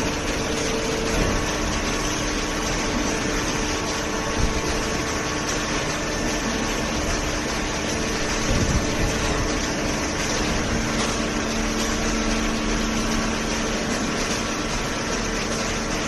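Paper baling machine running: a steady mechanical hum with a few held tones over even machine noise.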